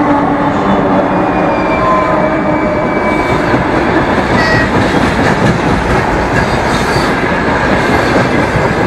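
Freight train passing close by: a steady loud rumble and rattle of wagon wheels on the rails, with a few brief high wheel squeals.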